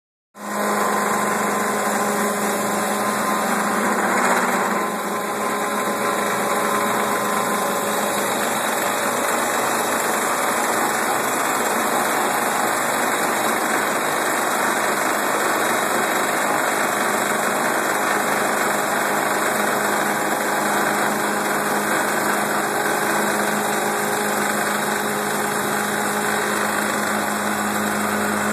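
CNC wood lathe turning a baseball bat blank: a steady motor hum with the dense rasp of the cutter shaving wood. There is a brief louder swell about four seconds in.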